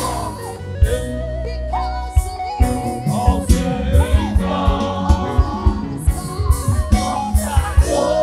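Gospel music: several voices singing with wavering, held notes over a band, with a steady bass and a regular beat of drum hits.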